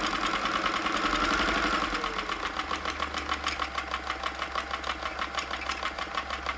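Kenmore 158.1040 three-quarter-size sewing machine running and stitching a very fine, short stitch: motor hum with a fast, even clatter of the needle and feed mechanism, slightly louder for the first two seconds.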